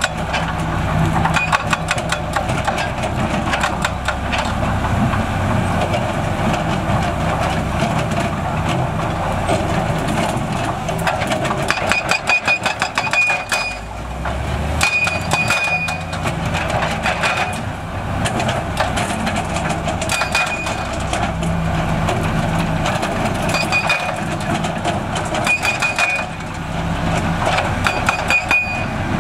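Diesel engine of heavy construction machinery running steadily, with frequent clanks and rattles and brief high squeaks every few seconds.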